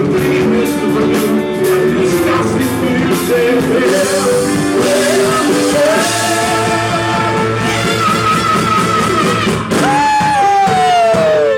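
Live rock band playing loudly: drums, bass and guitars, with a lead line holding long notes that slides down in pitch twice near the end.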